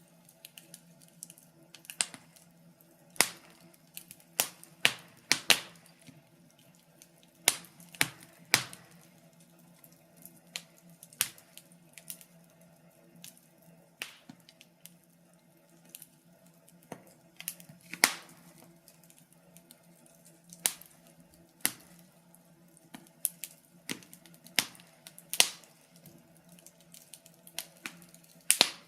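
Wood fire crackling, with sharp irregular pops and snaps, a few of them much louder, over a faint steady low hum.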